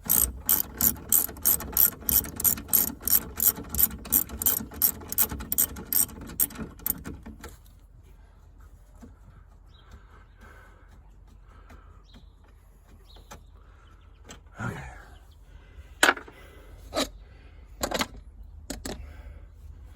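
Socket ratchet wrench clicking in a fast, even run of about three to four clicks a second for some seven seconds as a bolt is worked, then a few single clicks and knocks near the end.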